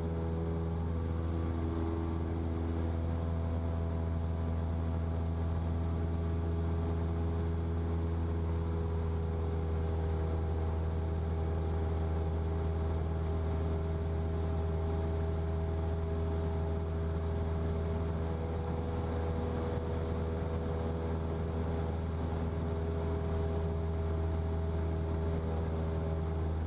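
Single-engine Cessna piston engine and propeller droning steadily in the cockpit at climb power after takeoff.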